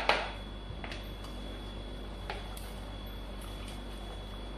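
Low, steady sizzle of garlic and chili pepper frying gently in olive oil in a pan, with a couple of faint knocks from a plastic colander being handled.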